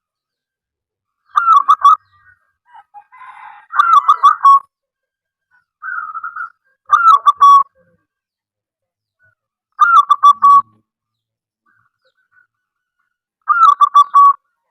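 Zebra dove (perkutut) singing: five loud phrases of quick, broken-up coos, one about every three seconds, with a softer short coo between two of them.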